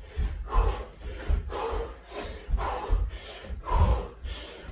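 A man doing jump lunges, breathing hard with sharp, forceful exhales, while his feet land with dull thuds on the carpeted floor. The breaths and thuds come in a steady rhythm of about two a second.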